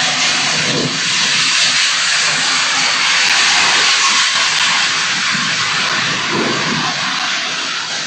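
The 'odd sound' recorded at One World Trade Center, heard as a steady, loud rushing hiss with a low rumble beneath. The recording has been filtered and amplified.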